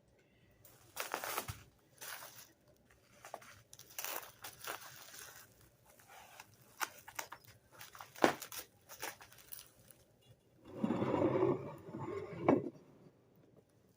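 Paper packing material rustling and crinkling as wrapped items are handled, with scattered sharp clicks and small knocks. A longer, louder rustle comes near the end.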